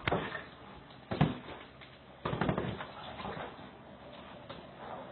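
Soft thumps and rustling as a man roughhouses with a small dog on a fabric couch, heard through a home security camera's microphone. There is a knock at the start and another about a second in, a busier patch of thumps and scuffling around two and a half seconds, then it goes quieter.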